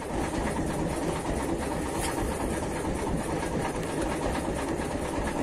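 Small wooden fishing boat's motor running with a steady, rhythmic rumble, over the rush of wind and choppy water.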